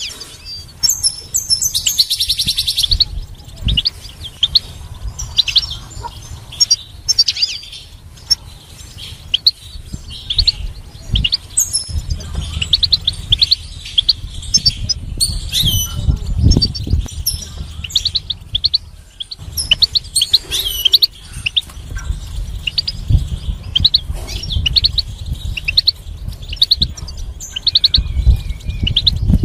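European goldfinch singing: a continuous stream of high, quick twittering chirps and trills, with a fast, even trill about two seconds in. A low rumble runs underneath.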